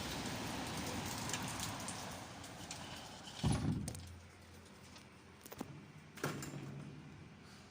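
Heavy rain hissing, dying away about three seconds in, then a dull thud and two sharp knocks.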